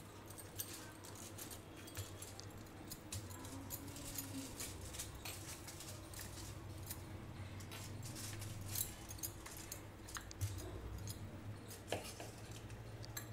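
Aluminium foil crinkling in faint, irregular crackles as hands press and a wooden rolling pin rolls dough spread on it, over a faint steady low hum.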